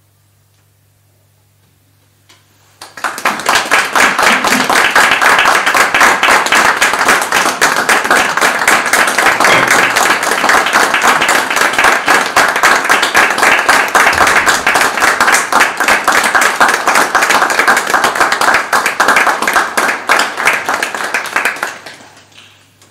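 Small audience applauding. It starts about three seconds in, after a quiet pause, holds strong and dense, and dies away near the end.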